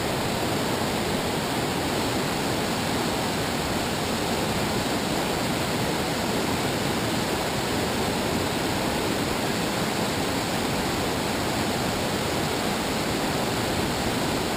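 Whitewater river rapids rushing steadily, an even hiss of tumbling water with no break or change.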